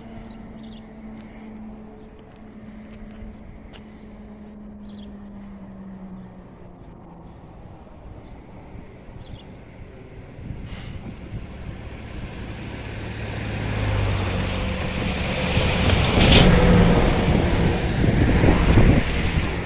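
A train hauled by ONCF electric locomotive E-1409, approaching: its rumble builds from about halfway and is loudest near the end as it draws close.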